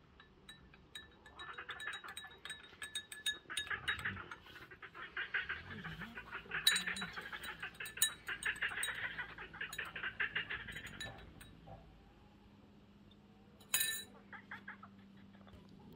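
Metal teaspoons stirring tea in glass cups, a fast run of small clinks of spoon against glass. Near the end comes a single sharper, ringing clink.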